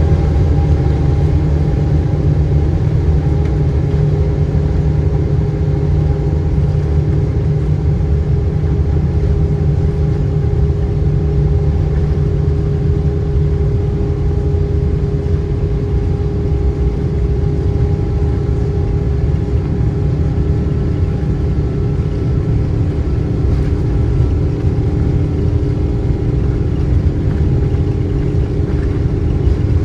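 GE90 turbofan engines of a Boeing 777-300ER running at full takeoff thrust: a steady, loud jet roar with a deep rumble and several steady engine tones.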